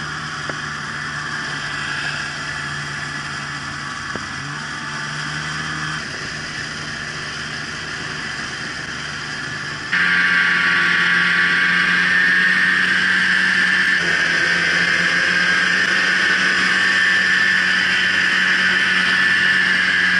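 Polaris Indy snowmobile engine running steadily under way, heard from the rider's seat. The note changes abruptly a few times, and about ten seconds in it becomes much louder and slightly higher.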